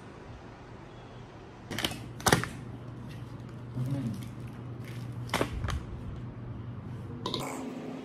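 Plastic toiletry bottles and containers clacking as they are picked up and set down, twice about two seconds in and once more past the middle, over a low steady hum and faint voices from a TV show.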